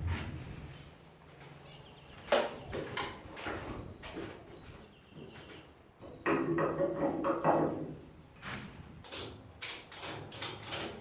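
Irregular metal knocks and clatter of hand tools and truck hardware being worked on, with a sharp knock about two seconds in, a denser rattling stretch in the middle and a run of quick clicks and knocks near the end.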